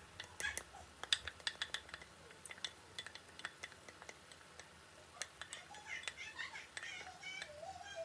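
Kitchen cutlery and dishes clinking: a scatter of light, sharp clicks and taps. In the second half come a few short, high, wavering calls.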